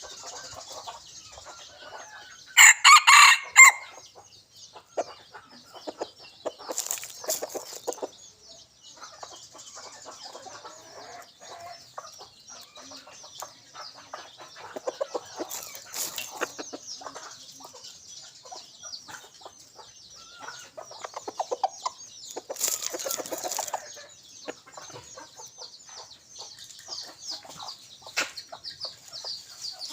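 Junglefowl cock clucking, with one loud crow about three seconds in and further loud calls around 7, 16 and 23 seconds. A steady high-pitched background hiss runs underneath.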